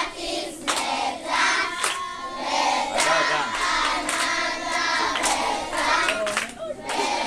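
Group of children singing together, with hand claps keeping a steady beat about once a second.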